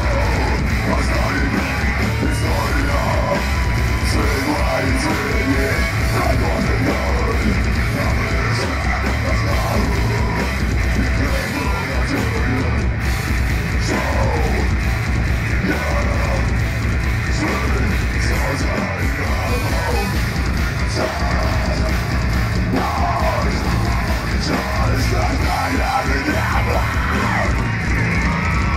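Metalcore band playing live: distorted electric guitars, bass and a hard-hit drum kit at full volume, with harsh shouted vocals at times.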